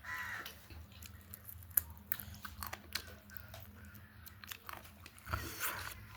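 A person chewing and biting food close to the microphone, with small irregular crunches and mouth clicks and one sharper crunch about two seconds in.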